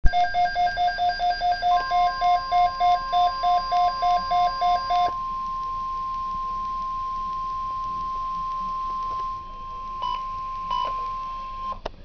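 Midland weather alert radio sounding an alert: a pulsing two-pitch beep, about three to four a second, with the steady high NOAA Weather Radio warning tone coming in under two seconds in, announcing a severe thunderstorm watch. The beeping stops about five seconds in, leaving the steady tone alone until it cuts off with a click near the end.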